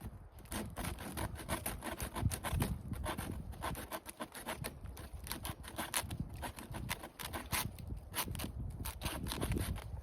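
Machete with a saw back cutting into a dead tree: a run of quick, repeated scraping and knocking strokes, several a second.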